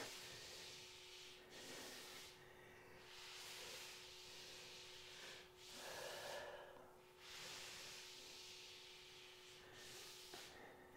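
Faint breathing of a person exercising, long breaths in and out with short pauses between, over a faint steady hum.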